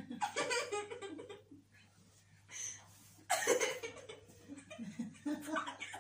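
A girl laughing and giggling in several short bursts, the loudest about three and a half seconds in.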